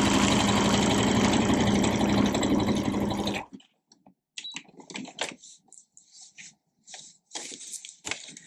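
Electric sewing machine running at a steady speed as it sews a stretch zigzag stitch to reinforce a bag handle, stopping about three and a half seconds in. Light rustles and clicks of the fabric being moved follow.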